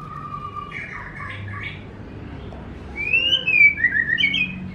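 White-rumped shama (murai batu) singing: a short, loud burst of quick whistled notes that glide up and down, about three seconds in.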